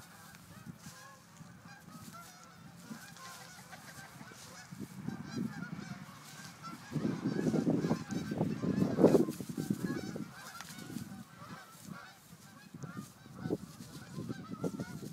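A flock of geese honking, many short calls overlapping without a break. About halfway through there is a louder stretch of low rustling and bumping as the goats shove each other in the dry leaves.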